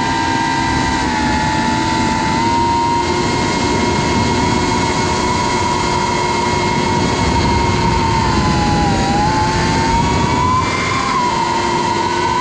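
Brushless motors and propellers of a 3-inch FPV quadcopter, heard from the GoPro mounted on it: a steady high whine over a low rush of air. The pitch dips briefly and then climbs again near the end as the throttle changes.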